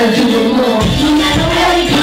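Live rap performance: a rapper's voice through a handheld microphone over a loud hip-hop beat with a deep bass line, played through a PA speaker.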